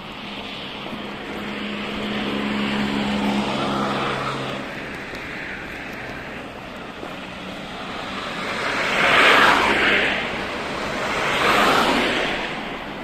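Road traffic passing along a city street. A vehicle's engine hums in the first few seconds. Then two cars pass close by, one about nine seconds in and one near the end, each rising to a tyre-and-engine whoosh and fading away.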